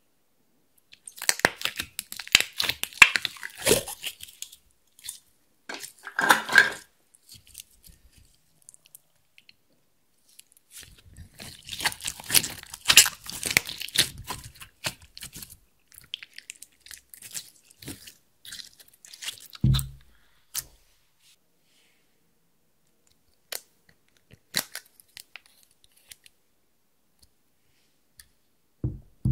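Clear slime being pressed and kneaded by hand into loose glitter and crushed makeup powder, giving bursts of dense crackling and crunching. Scattered clicks follow, with a single dull thump about two-thirds of the way in.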